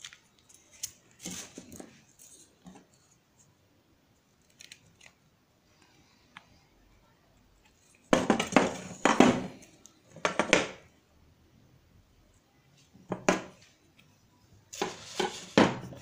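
Metal clinking and rattling of a steel chainmail glove and hand tools (knife, locking pliers) being handled on a wooden table, in several short bursts with quiet gaps. The loudest bursts come in the middle.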